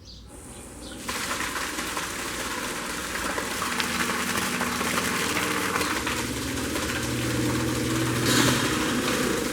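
Homemade PVC-pipe water pump driven by an old washing machine motor, starting about a second in and running with a steady hum under a loud rushing hiss, then cutting off at the end.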